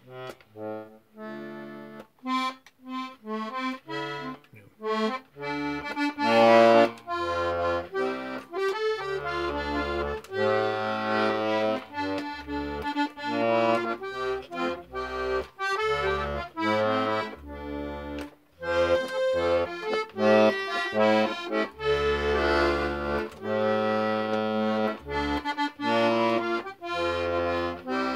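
A nearly 100-year-old Hohner Club Model III button melodeon, fully restored, being played: a tune of melody notes over steady alternating bass and chord notes from the bellows-driven reeds.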